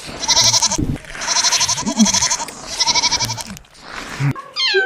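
Goat bleating three times, each call a wavering, quavering bleat under a second long. Near the end a cat starts a long, drawn-out meow.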